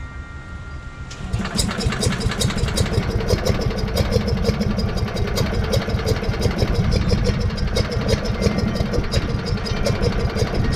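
Allis-Chalmers B-10 garden tractor engine starting up about a second in, then running steadily with an even, rapid pulsing beat.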